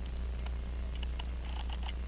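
A low steady hum with a few faint light clicks of tweezers working on a pocket watch movement while a stuck hairspring stud is being pushed out.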